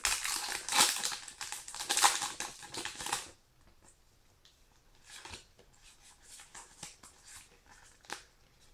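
Foil wrapper of a Pokémon card booster pack crinkling loudly for about three seconds as it is torn open, then faint rustles and clicks as the cards are handled.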